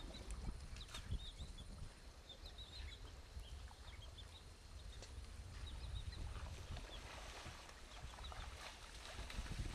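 Shallow water sloshing and splashing as a forest elephant calf wades through it, with many short, high bird chirps in the background.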